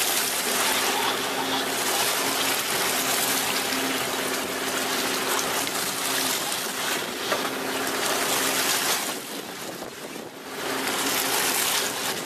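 Water gushing steadily from an outlet in a fishing boat's hull and splashing into the sea, over a low steady hum, easing briefly about nine seconds in.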